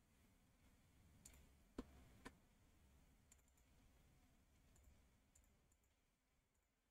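Near silence with a few faint computer mouse clicks, the clearest a pair about two seconds in.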